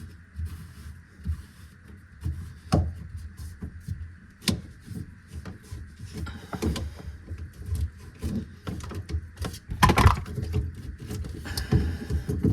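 Irregular metal and plastic knocks, clunks and scraping of an old garbage disposal being worked loose from its mounting ring under a kitchen sink, with a louder cluster of clunks about ten seconds in.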